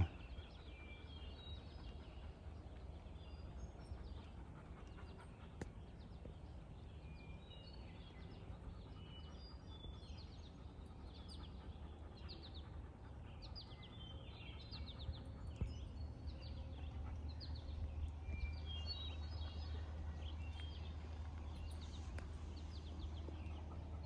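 Songbirds in the forest chirping and singing, faint, many short scattered calls from several birds. Under them a steady low rumble that grows stronger in the second half.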